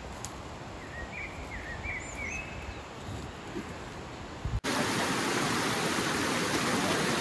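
Outdoor quiet with a few short bird chirps. About four and a half seconds in, it cuts to a mountain stream rushing over rocks, a loud, steady rush of water.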